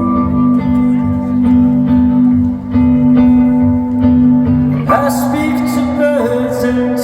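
A live band playing a slow song: guitar and held, sustained chords over a steady low pulse, with a singing voice coming in about five seconds in.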